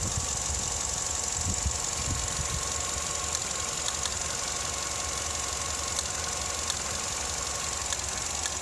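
Vauxhall Astra Mk6 engine idling roughly, a steady low running sound with a few faint ticks, the rough idle that the owner reports once the engine is warm.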